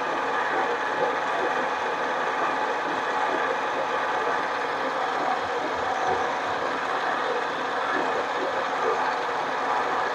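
Harbor Freight mini lathe running at a steady speed while a cut is fed, its motor and gear train giving an even whir with a constant hum.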